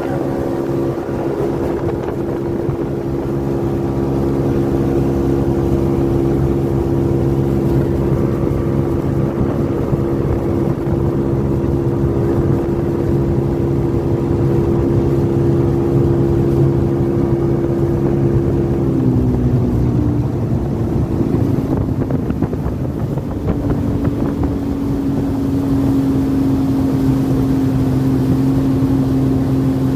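Motorboat engine running steadily at speed. About two-thirds of the way through its pitch drops as the engine is throttled back, then it holds steady at the lower speed.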